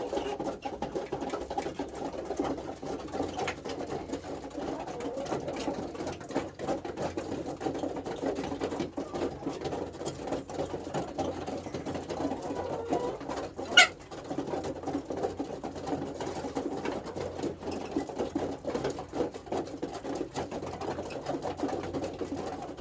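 Hens murmuring together in a continuous low purring chatter, the contented sound of happy chickens. One short, sharp sound stands out about fourteen seconds in.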